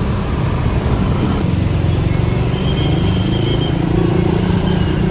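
Tour bus engine running close by, a steady low rumble.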